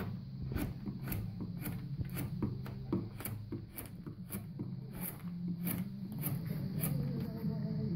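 Hand chisel cutting into a carved wooden relief: a series of crisp paring strokes, about two to three a second, as chips are taken off by hand. A steady low hum runs underneath.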